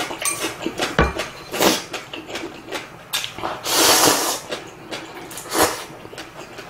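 Eating sounds of spicy instant ramen: a long, loud slurp of noodles about four seconds in, with short chewing and mouth sounds before and after it.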